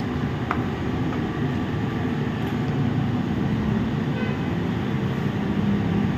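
Steady low rumbling background noise, with one faint click about half a second in.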